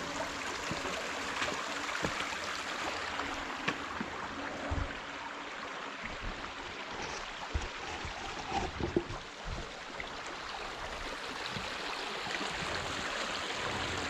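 Tag Run, a small mountain stream, running with a steady rushing sound, with a few dull low thumps around the middle.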